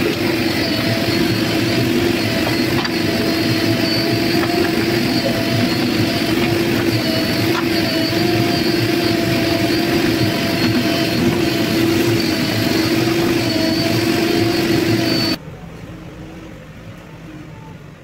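JCB backhoe loader's diesel engine running steadily under load while the backhoe arm digs, a loud held drone with a slight waver in pitch. About 15 seconds in it drops suddenly to a much quieter, more distant engine sound.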